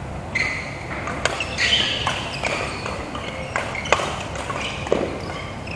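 Badminton rally: several sharp racket hits on the shuttlecock, roughly a second apart, with short squeaks of court shoes on the mat.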